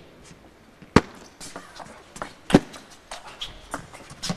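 Table tennis ball clicking off the rackets and the table through a serve and the rally that follows. The loudest crack comes about a second in, another follows about a second and a half later, and then the clicks come quicker and lighter.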